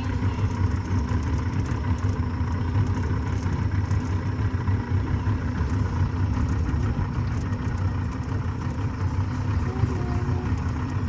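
A motor running steadily: a low rumble with faint steady hum tones.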